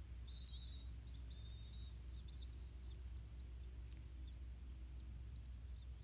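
Faint outdoor ambience: a few short, wavering high chirps in the first half, then a steady high-pitched insect drone that sets in about three seconds in, over a low rumble.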